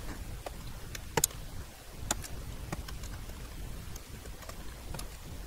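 Light, irregular clicks and taps of small push-on wire connectors being worked off the pins of an HP 9120A printer's sensor board, with one sharper click just over a second in.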